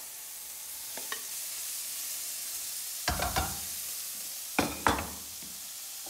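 Chicken and mixed vegetables sizzling in a hot frying pan on a gas hob as the vegetables are tipped in from a metal bowl. Two short bursts of knocks, about three and about four and a half seconds in, from the bowl and wooden spoon striking the pan.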